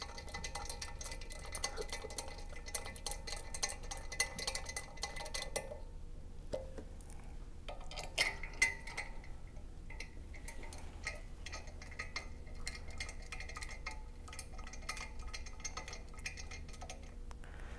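Steel M8 cap-head screws being turned in by hand, finger tight, against a stainless flange: faint, irregular metallic ticks and light scraping, with a couple of louder clinks about eight seconds in.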